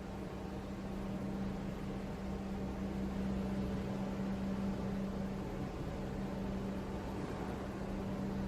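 Subway shuttle train standing at the platform between runs: a steady mechanical hum with a constant low tone.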